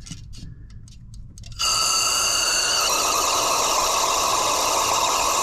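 Aerosol can of brake cleaner spraying in one long continuous blast, a loud steady hiss that starts abruptly about a second and a half in.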